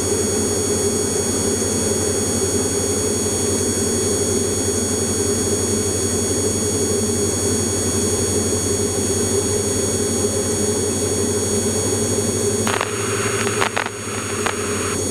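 Light aircraft's piston engine and propeller droning steadily, heard inside the cockpit in flight. A few clicks and a short burst of hiss come near the end.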